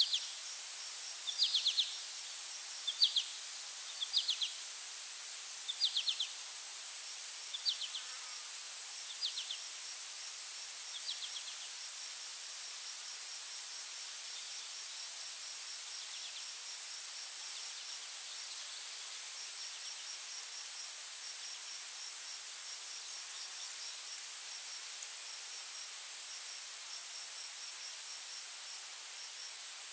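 Steady high drone of insects, with crickets chirping throughout. During the first ten seconds or so, a bird gives a short call about every one and a half seconds. The calls grow fainter and then stop.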